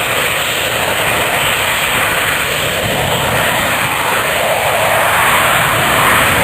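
Jet aircraft engine noise, a steady rushing sound that grows slightly louder toward the end.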